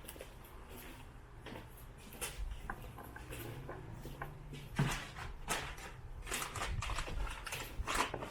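Scattered clicks and knocks of tools and metal parts being handled in a workshop, more frequent and louder from about halfway through.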